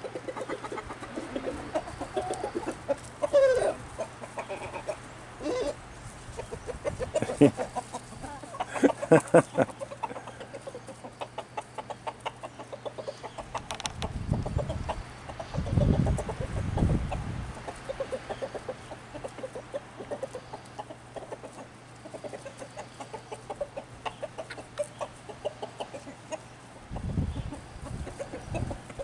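A flock of chickens clucking as they forage, with many short calls scattered throughout.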